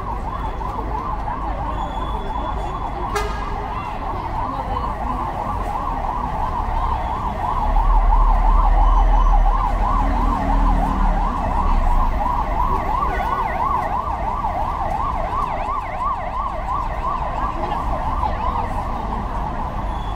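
Emergency vehicle siren sounding continuously in a fast up-and-down yelp. A low vehicle engine rumble swells and is loudest about eight to twelve seconds in.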